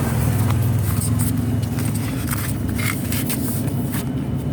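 Steady low rumble of a running vehicle engine, with a few light clicks and rustles of handling over it.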